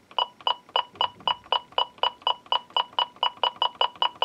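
AT&T/VTech telephone base beeping quickly and evenly, one short beep for each all-segment '8' character written across its caller ID display during a screen test, about four beeps a second and speeding up slightly.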